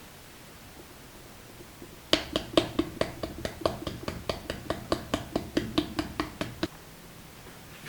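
Quick, even tapping on a pottery piece, about five light taps a second with a slight ring, starting about two seconds in and stopping after four and a half seconds.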